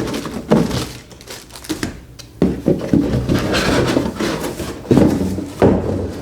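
Cardboard box and packaging being handled: several knocks and thunks, with rubbing and scraping in between.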